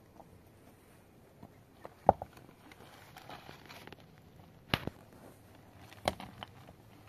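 Three sharp knocks, about two, five and six seconds in, the first the loudest, with faint scuffing and crackling between them.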